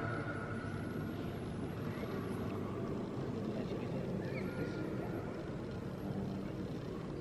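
A steady low rumble, with faint voices echoing now and then in the background.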